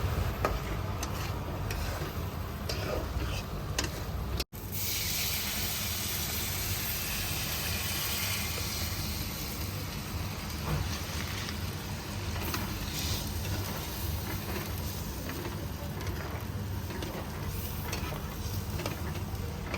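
Mustard-masala curry base sizzling in a hot pan. The audio drops out for an instant about four and a half seconds in; after that the sizzling is louder and then slowly eases, over a steady low rumble.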